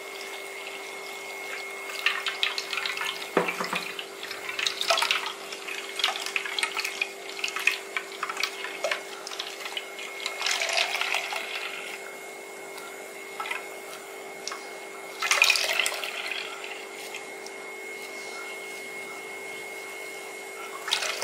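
Wet ground coconut squeezed by hand in a steel strainer, pressing out coconut milk that splashes and drips into a steel bowl, in irregular bursts with a louder one about fifteen seconds in. A steady hum runs underneath.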